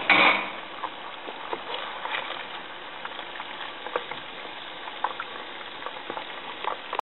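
Whole trout frying in shallow oil in a nonstick pan: a steady sizzle scattered with small pops and crackles of spitting oil. It is louder for a moment at the very start.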